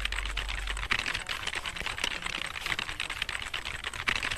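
Rapid, continuous light clicking and tapping, like fast typing on a keyboard.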